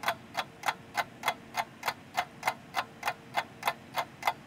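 Steady, evenly spaced mechanical ticking, about three ticks a second, over a faint steady hum.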